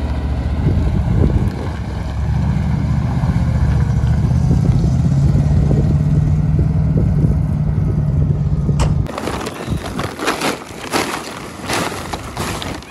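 Truck engine running steadily. About nine seconds in it cuts off, and a large plastic tarpaulin rustles and crinkles in irregular bursts as it is spread out.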